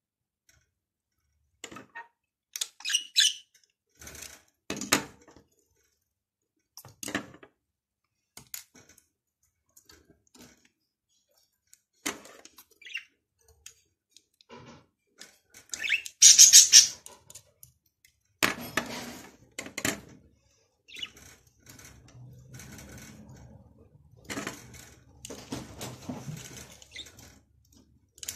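Plastic Lego bricks clicking as they are handled and pressed together, with scattered taps on a tabletop. A louder, hissy high-pitched burst comes about halfway through.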